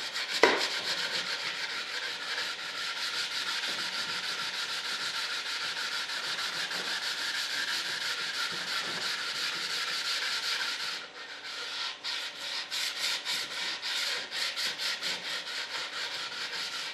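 Sandpaper worked by hand over the filled and primed surface of a model-jet part, in quick, even back-and-forth rubbing strokes. It pauses briefly about eleven seconds in, then goes on in slower strokes. Two sharp knocks come right at the start.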